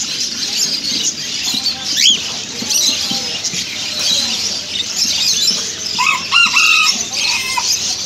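Many caged small parrots, budgerigars, lovebirds and cockatiels, chattering and chirping together in a steady high-pitched din. A quick rising squeak comes about two seconds in, and a louder call of a few pitched notes comes around six to seven seconds in.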